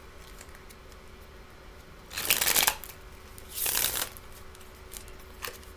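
A deck of tarot cards being shuffled by hand: two short shuffling bursts about a second and a half apart, with a few light card clicks around them.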